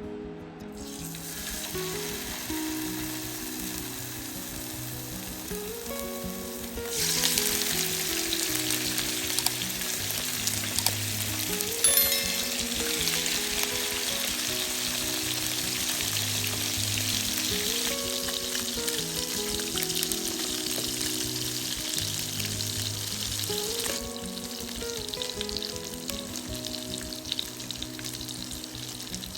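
Food frying in hot oil in a pan, a steady sizzle that grows louder about a quarter of the way in and eases again near the end, with one sharp click midway. Background music plays underneath.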